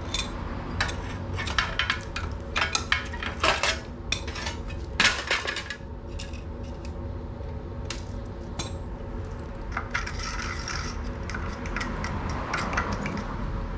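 Metal hand tools and parts clinking, knocking and scraping against one another: a quick run of sharp knocks in the first half, then softer scraping and the odd click, over a steady low hum.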